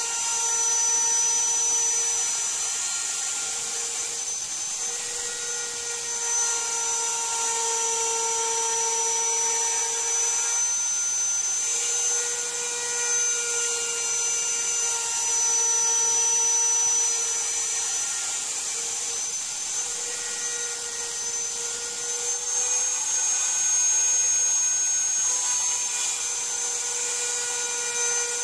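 Router spindle on an MPCNC machine running at speed while its 1/4" end mill cuts a pocket in iroko hardwood, taking a 10 mm deep cut with 1 mm step-over. It makes a steady high whine with several tones that shift slightly in pitch as the cut goes on.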